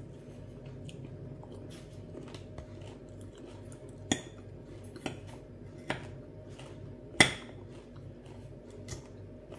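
A metal fork clinking against a glass plate about five times while picking up chopped salad, the loudest clink about seven seconds in, over a steady low hum.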